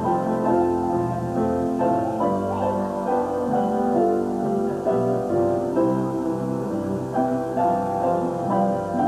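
Piano playing an instrumental passage of sustained chords.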